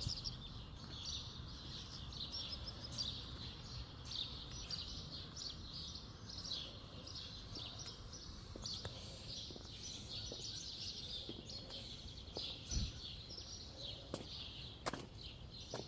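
Several songbirds chirping and singing continuously and overlapping, over a steady low rumble, with a few sharp clicks near the end.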